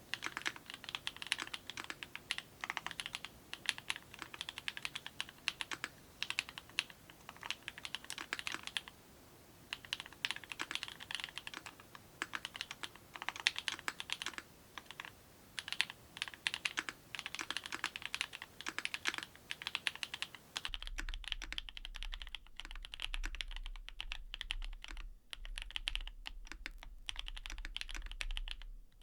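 Fast typing on a custom mechanical keyboard with clacky linear switches: a dense run of sharp key clacks with brief pauses. About two-thirds of the way through the recording changes and a low steady hum comes in under the typing.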